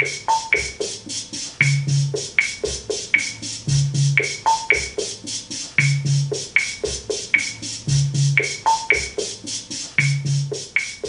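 Drum machine playing a steady rhythm pattern: a hi-hat-like tick about three to four times a second, short clave-like clicks, and a low bass-drum thump about every two seconds.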